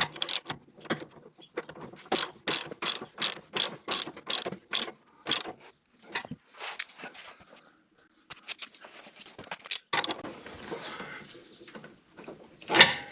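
Socket ratchet clicking in a quick run of strokes, about three a second, as a 15 mm bolt on the mower deck hanger is worked loose. Scattered quieter clicks follow, with a louder clatter near the end.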